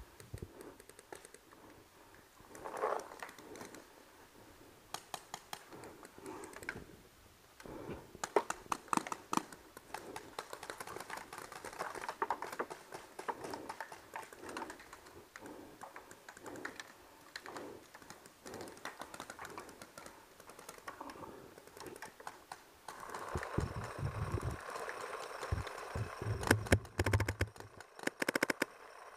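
Paintball markers firing in rapid strings of sharp pops across the field, with breaks between bursts. Near the end come rustling and thumps as the player shifts behind the tube bunker.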